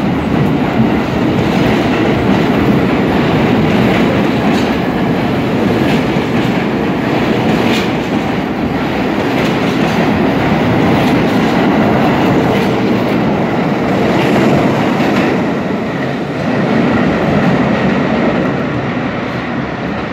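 R32 subway train pulling out of the station past the platform: a loud, steady rumble of motors and steel wheels on rail, with scattered sharp clicks from the wheels crossing rail joints.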